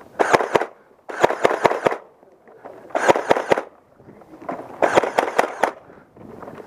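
A motorized full-auto Nerf blaster, the Nerf Stampede run on a LiPo battery, firing four short bursts of rapid dart shots, each a quick run of clicks over a motor whir.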